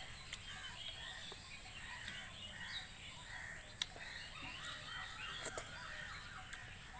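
Birds chirping and calling in the background, many short rising-and-falling chirps in quick succession. A few sharp clicks stand out, the clearest about four seconds in and again about five and a half seconds in.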